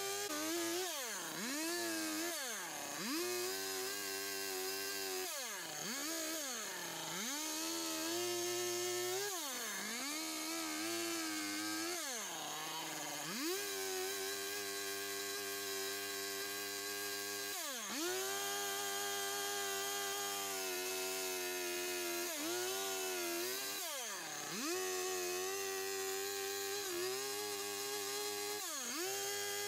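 Stihl chainsaw cutting and carving wood at high revs; its pitch drops sharply and climbs back about nine times as the throttle is eased off and opened again between cuts.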